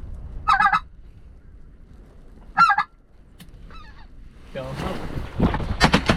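Goose calling in short yelping honks, a few separate bursts at first, then a denser, louder run of calls over the last couple of seconds as geese work in close.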